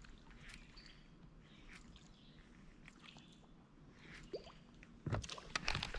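Faint outdoor background with a few scattered bird chirps. About five seconds in, a sudden flurry of loud sharp knocks and thumps from the rod and reel being handled on the boat deck, as a fish strikes the bait and the angler reacts.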